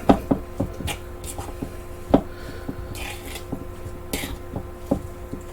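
A utensil mixing latke batter of grated potato, egg and flour in a bowl: scattered light knocks and clicks against the bowl, with a couple of brief scrapes about three and four seconds in.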